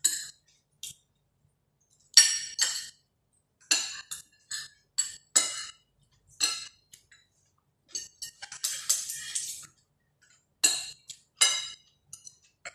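Spoons and forks clinking and scraping against dinner plates in short, irregular strikes, with a longer scrape about nine seconds in.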